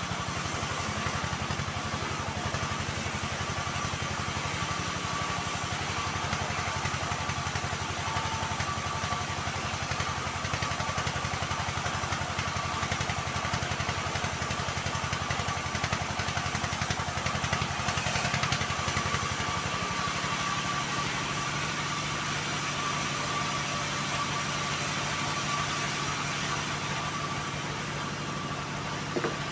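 Homemade band sawmill running steadily: a low machine hum with a steady high whine over it. The low hum drops in pitch about twenty seconds in.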